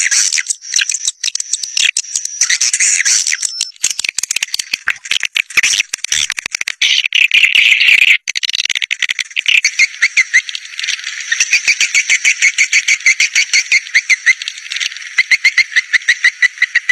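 Swiftlet caller sound: a dense, loud chatter of rapid high chirping swiftlet calls over a steady high whistle, settling in the second half into a fast, even run of several chirps a second. It is the kind of call played to lure swiftlet flocks in to roost and nest.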